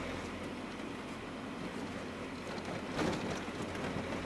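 GAZelle van driving on a snowy road, heard inside the cab: a steady engine and tyre drone, with a single thump about three seconds in.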